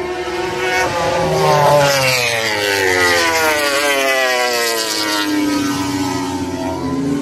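MotoGP prototype racing motorcycle's four-cylinder engine passing at speed. The engine note climbs in pitch as the bike approaches, then falls steadily as it goes past and away.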